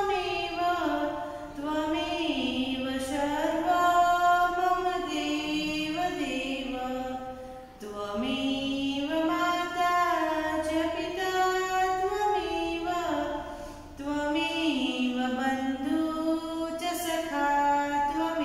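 A woman singing a prayer solo, without instruments, in long melodic phrases. There are short pauses for breath about eight and fourteen seconds in.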